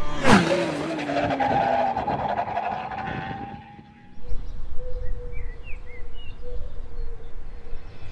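Racing motorcycle going past at speed, its engine note dropping sharply as it passes and then trailing away. About halfway through this gives way to steady outdoor noise with a faint steady hum and a few short high chirps.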